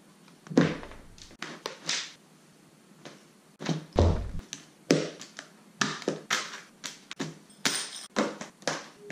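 Gym gear (clothes, trainers, plastic bottles, a shaker and a table-tennis bat) being dropped and set down one piece after another on a wooden floor: a string of separate thunks and taps, coming faster in the second half.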